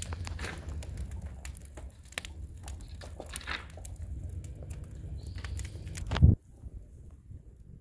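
Wood fire burning hard in an open-topped steel ring kiln: the flames make a low rumble with frequent sharp crackles and pops. About six seconds in, the sound cuts off abruptly to the faint, sparse crackle of the burned-down fire.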